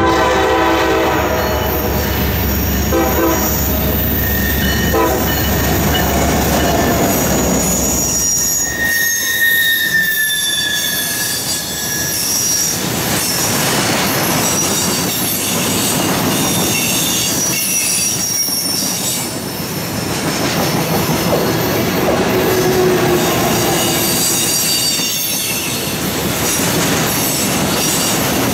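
A diesel freight locomotive sounds its horn in a few blasts over a low engine rumble as it nears and passes. From about eight seconds in, a long string of rack cars loaded with welded rail rolls by with high squeals over the rolling noise of the wheels.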